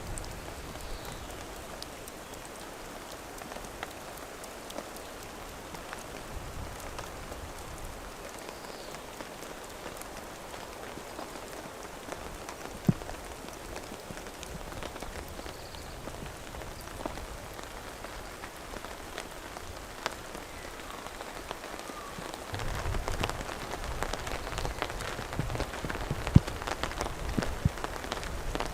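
Steady light rain falling, with many separate drops ticking sharply. It grows heavier and louder near the end.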